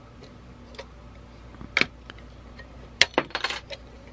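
Small metal clicks and taps from parts and tools of a 1952 Zeiss Ikon Ikoflex IIa camera being handled during teardown: one sharp click a little under two seconds in, then a quick cluster of clicks with a brief metallic ring about three seconds in.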